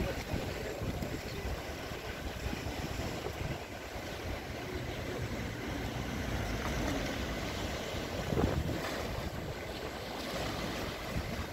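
Rough sea waves washing against the shore, with wind buffeting the microphone, and a louder surge about eight and a half seconds in.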